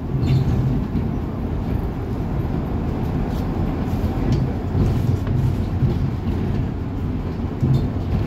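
Scania city bus heard from inside the passenger cabin while under way: steady engine and road rumble, with a few faint knocks and rattles.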